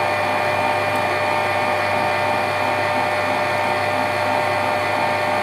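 Kenwood stand mixer running steadily at speed, its whisk beating an egg-and-sugar cake batter in a steel bowl: an even motor whir with a steady whine.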